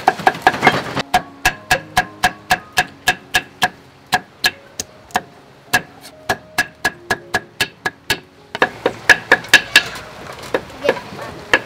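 Kitchen knife chopping pedro cactus stalk on a round wooden cutting board: steady, sharp chops about three to four a second, a quicker and louder run of chops after about eight seconds.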